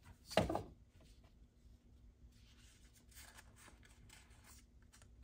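A short thump about half a second in, then soft rustling of construction paper as a glued strip is curled into a ring for a paper chain.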